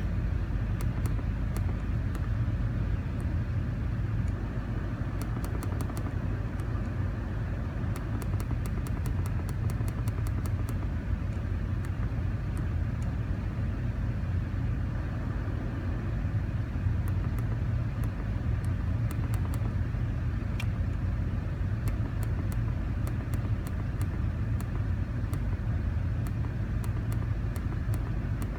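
Car engine idling steadily with a vacuum leak, a low even rumble with a steady hiss over it. Faint sharp ticks come in quick runs now and then.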